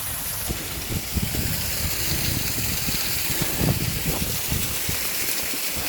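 Steady rushing of water spilling over small waterfalls in an irrigation ditch, with irregular low knocks and rustles throughout.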